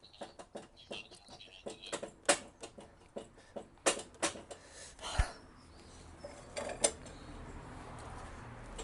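Metal clinks and knocks from tools and car parts being handled, a run of short irregular taps with a few louder strikes. A faint low hum comes in about halfway through.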